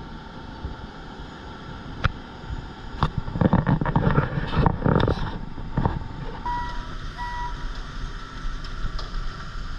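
Concrete mixer truck's diesel engine running steadily on the jobsite, with a few sharp knocks and a loud rough rush lasting about two seconds, a few seconds in. Two short beeps sound later.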